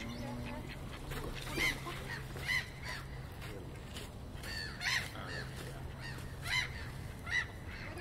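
Geese honking: a string of short calls, about one every second or two, over a steady low hum.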